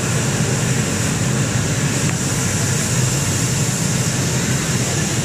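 MISSILECNC M5S CNC router and oscillating-knife cutting table running: a steady low hum with a high hiss over it, with no distinct strokes or changes.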